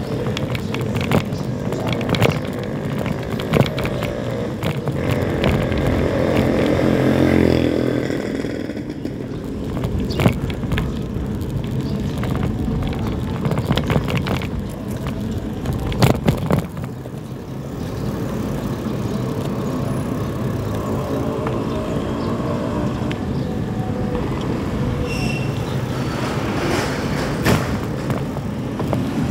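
Street traffic heard from a moving bicycle: motorcycle and motorcycle-tricycle engines running and passing, over a steady rush of wind and tyre noise. Sharp knocks and rattles come from bumps in the road, the loudest about ten and sixteen seconds in.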